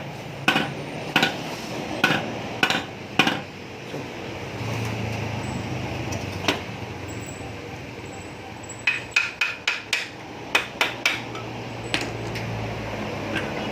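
Sharp metal-on-metal hammer strikes on parts of an electric water pump being dismantled to replace its worn bearing. About five blows come in the first few seconds, then a single one, then a quicker run of about eight near the ten-second mark, over a low steady hum.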